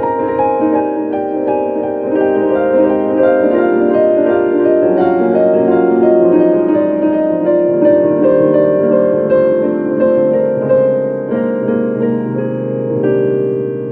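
Solo piano playing a melody over held chords, with notes changing every fraction of a second.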